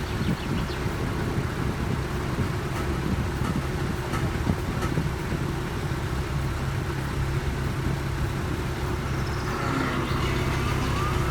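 A boat's engine running with a steady drone.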